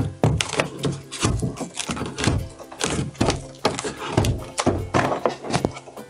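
Background music, with several thunks as a Mitsubishi Electric Kirigamine wall-mount air-conditioner indoor unit is pushed up and seated onto its mounting plate.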